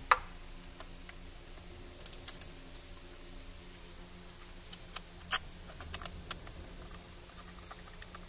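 Scattered light clicks and taps of hands handling plastic and metal engine parts, the sharpest right at the start and another about five seconds in, over a faint steady hum.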